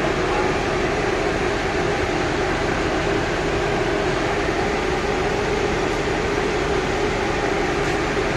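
Parked coach buses idling: a steady, unchanging engine and air-conditioning drone.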